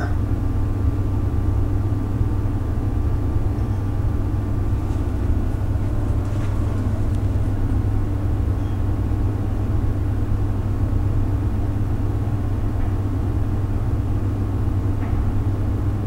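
Steady low hum of background machine or room noise, unchanging throughout, with no other distinct sound standing out.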